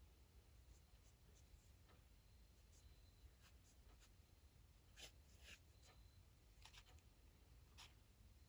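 Faint scratching of a fine-tip ink pen on paper in short, separate strokes, the clearest about five seconds in and again near the end, over a very quiet room.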